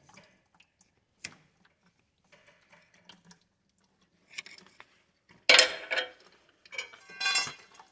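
Scattered light metallic ticks and clicks, then a loud clatter about five and a half seconds in and a shorter rattling clink near the end.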